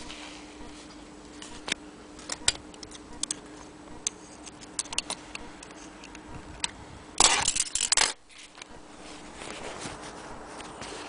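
Handling sounds at a sewing machine: scattered light clicks and taps of fabric, metal and scissors, then a loud rustle of denim brushed close to the microphone for about a second, about seven seconds in.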